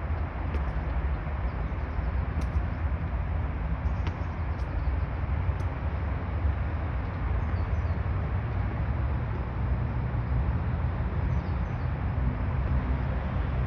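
Steady outdoor background noise with a strong low rumble, and a few faint bird chirps above it.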